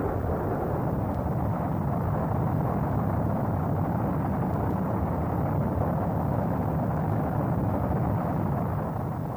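Electronic dance music breakdown: a steady, dense, low noise effect with no beat and the high end filtered away, fading near the end.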